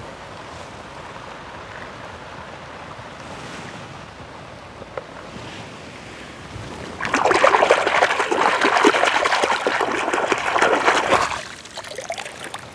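Shallow water lapping steadily, then from about seven seconds in a few seconds of loud splashing and sloshing as a mud-caked toy car is swished through the water to wash it clean, stopping just over eleven seconds in.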